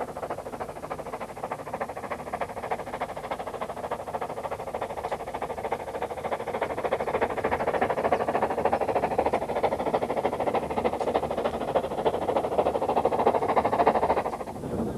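Steam rack locomotive of the Brienz Rothorn railway working uphill, its exhaust beats and running gear making a steady, fast clatter that grows louder, then cuts off abruptly shortly before the end.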